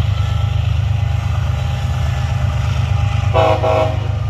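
Diesel freight locomotive running with a steady low rumble, and a short horn toot about three seconds in.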